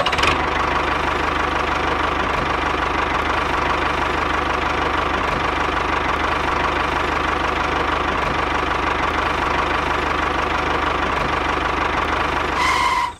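Tractor engine running steadily at an even speed, with a fast knocking beat and a thin steady whine over it.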